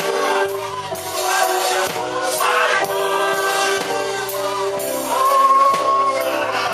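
A gospel worship song: several voices singing together over band accompaniment, with a bass line and a steady beat.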